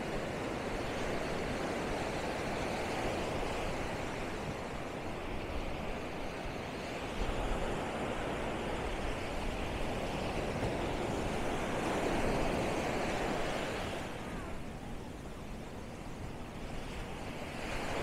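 Small surf breaking on a sandy beach and washing up the shore, a steady rushing that swells and eases, with a dip a few seconds before the end.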